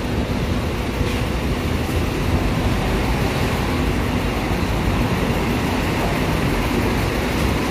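Steady city street noise, mostly the rumble of passing road traffic.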